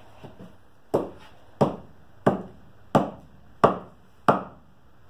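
Axe knocking into a short piece of firewood stood on a chopping block, splitting it: six sharp wooden knocks, evenly spaced about two-thirds of a second apart.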